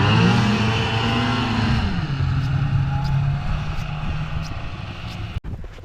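An engine running: its pitch slides down about two seconds in and then holds steady, and it cuts off abruptly near the end.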